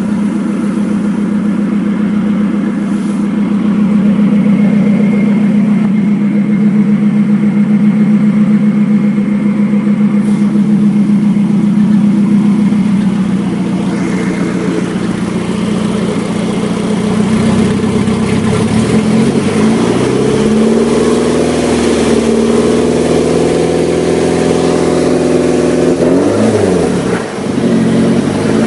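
Freshly rebuilt Nissan KA24DE 2.4-litre twin-cam inline-four running at a steady idle. From about two-thirds of the way through it is revved several times, the pitch rising and falling with each rev.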